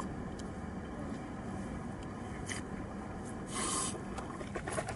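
Water forcefully expelled during the mouth and nose rinse of wudu: a short spraying hiss about three and a half seconds in, after a fainter one, over steady low background noise.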